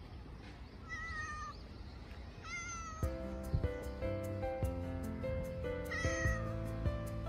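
Tabby-and-white street cat meowing, three short calls. Background music comes in about three seconds in.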